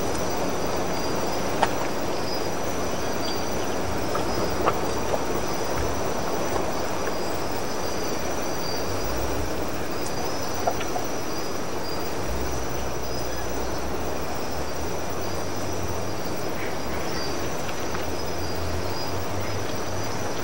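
Steady outdoor ambience: an even rushing noise with a constant high whine over it, uneven low rumble, and a few faint clicks.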